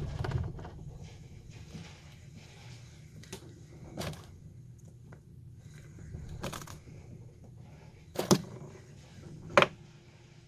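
Handling noises: scattered knocks and light rustling, with two sharp clicks about eight and nine and a half seconds in.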